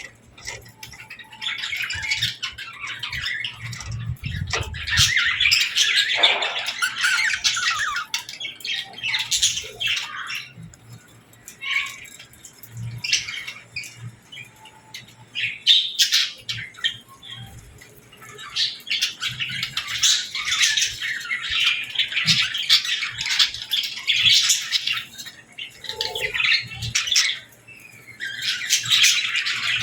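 Budgies and lovebirds chirping together in dense, overlapping chatter. The chatter eases to scattered calls for several seconds about a third of the way in and again briefly near the end.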